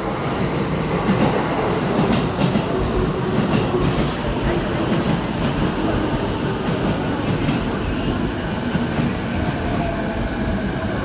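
Electric train running through the station alongside the platform, a continuous rumble of wheels on rails with a faint steady whine coming in late on.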